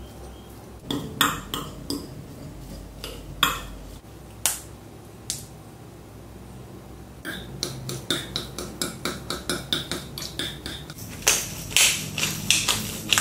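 Kitchen utensils clinking and knocking against dishes and bowls: a few separate knocks at first, then a run of quick, even taps about five a second from about seven seconds in, and a few louder knocks near the end.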